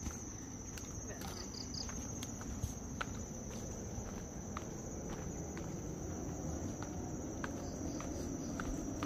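Insects chirring in one steady, unbroken high-pitched drone, over footsteps on a trail, heard as scattered light clicks, and a low outdoor rumble.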